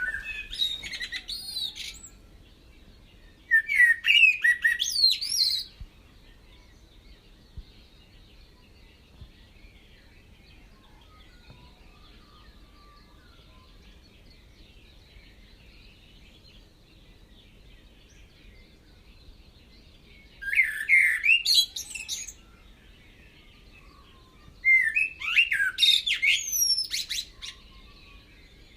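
Birds singing: four loud bursts of rapid warbling, gliding calls, one at the start, one about four seconds in and two in the last ten seconds, with quiet outdoor background between them.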